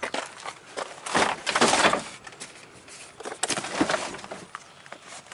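Irregular rustling and scuffing with a few sharp clicks and knocks, from someone moving about and handling a car's interior; the longest bursts come about a second in and again past three seconds.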